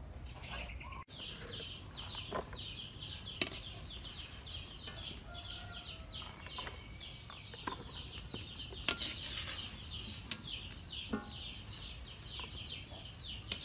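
Rapid, even high-pitched chirping, about four or five chirps a second, starting about a second in, with a couple of sharp metallic clinks from tongs.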